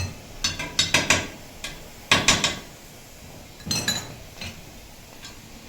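Dishes and metal clattering: three short clusters of sharp clinks and knocks, some with a brief ring.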